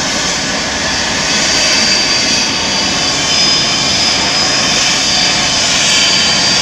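Trauma helicopter's turbine engines running on the ground: a steady rush with a thin, high whine on top.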